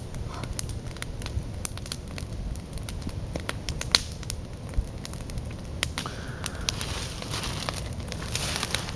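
Wood campfire of sticks and branches burning, crackling with frequent irregular sharp pops; the loudest pop comes about four seconds in.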